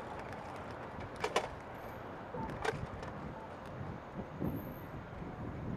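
Steady road and traffic noise heard from a moving bicycle, with two sharp clacks, one just over a second in and another about a second and a half later.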